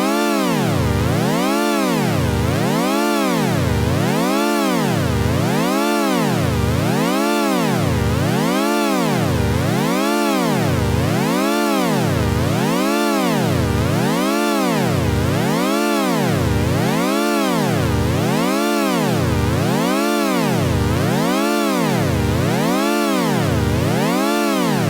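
Synthesized electronic tone whose pitch glides smoothly up and down in a steady, unbroken wobble, about once every second and a half, at constant loudness.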